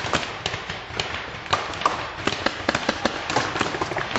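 Paintball markers firing all around: a dense, irregular string of sharp pops, several a second, overlapping one another.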